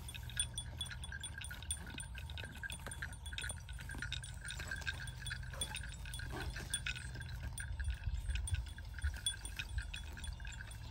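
Zebu cattle grazing, with many short irregular snaps and rustles of grass being torn and chewed, over a steady high pulsing insect drone and a low wind rumble.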